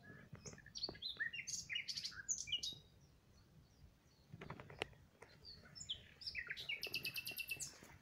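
Songbirds singing: a quick, varied phrase of chirps and whistles, then near the end a fast trill of about ten high notes a second. A few soft knocks sound about halfway.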